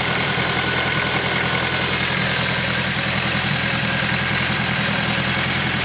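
Turbocharged Honda S2000's four-cylinder engine idling steadily and evenly after new fuel injector seals, without valve chatter; it runs smooth, 'like a little sewing machine'.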